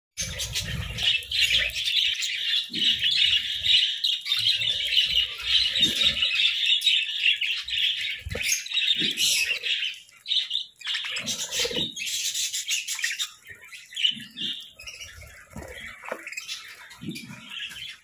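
Budgerigars chattering and chirping, a dense, busy warble for about the first ten seconds that thins to scattered chirps after that, with short low knocks here and there.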